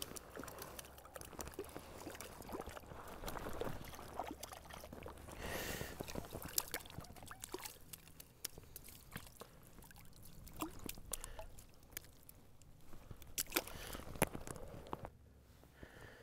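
A freshly caught trout handled on wet, slushy ice at the edge of an ice-fishing hole. Scattered knocks and taps come with brief sloshing and dripping of water.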